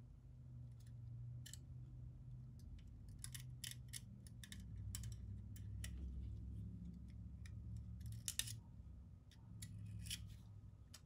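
Razor blade scraping excess FIPG sealant flush on the engine block's water pump gasket surface, leaving only the corrosion pits filled: faint, irregular short scrapes and light clicks, some in quick clusters. A low steady hum runs underneath.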